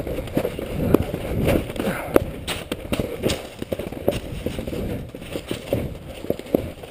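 Snowboard sliding and scraping over spring snow, with irregular knocks and crackles as the board chatters over the rutted surface.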